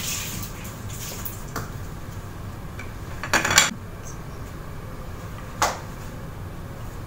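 Kitchen utensils clattering: a few light clicks, then a louder clatter of spatulas on a plate about three and a half seconds in, and a single sharp knock of a spatula against the frying pan a couple of seconds later.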